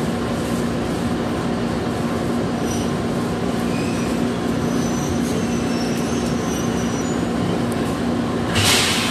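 Electric commuter train heard from inside the cab as it creeps slowly toward the buffer stops: a steady hum and running noise, with faint high squeals in the middle as it brakes. A short loud hiss comes near the end.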